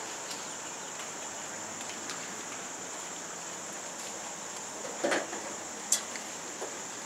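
Steady outdoor background hiss under a constant high-pitched drone, with a few faint ticks, a short rustle about five seconds in and a sharp click about a second later.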